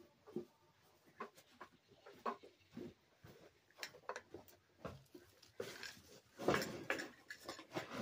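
Ducks quacking in short, irregular calls, with a louder run of quacks about six and a half seconds in.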